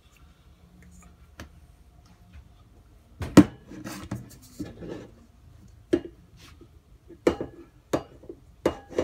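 A stainless steel stand-mixer bowl being handled and set down: several sharp knocks and clinks after a quiet start, the loudest about a third of the way in, with softer handling noise between them.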